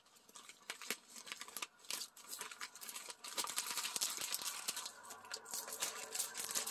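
Clear plastic bag crinkling and rustling with small clicks as a notebook is handled and worked out of it. The rustling gets busier about halfway through.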